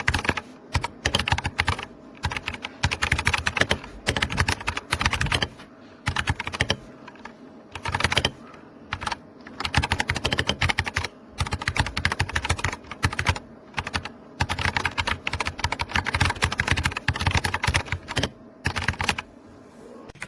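Typing on an RK Royal Kludge RK61 60% mechanical keyboard: fast runs of key clicks, broken by several short pauses.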